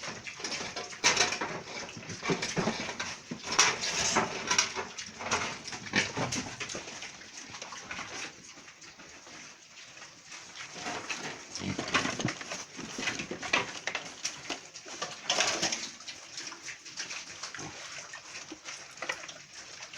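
Pigs calling in irregular bursts, busy for the first several seconds, easing off, then picking up again for a few seconds past the middle.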